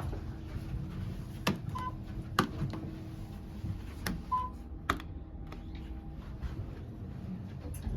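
Hitachi elevator control panel: four sharp button clicks, two of them followed by a short beep, over the low steady hum of the elevator car.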